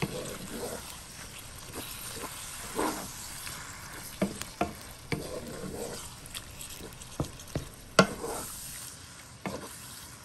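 Wooden spatula stirring and scraping a wet mixture of ground beef, tomatoes and peppers in a nonstick skillet, with a light sizzle under scattered knocks of the spatula against the pan. The loudest knock comes about eight seconds in.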